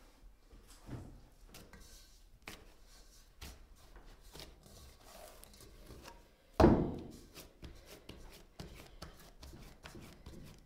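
Hands kneading a large ball of soft yeast dough in an enamel basin: soft taps, squishes and rubbing, with one heavy thump about two-thirds through as the dough lands in the basin, the metal basin briefly ringing after it.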